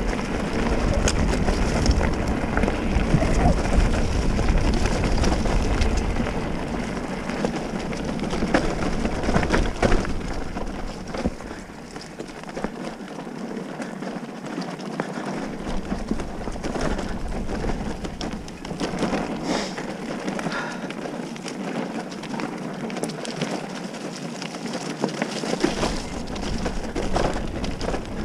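Bicycle tyres rolling fast over a dirt trail strewn with leaves and grit, making a steady rushing noise with scattered clicks and rattles from the bike. A low rumble comes and goes as it runs.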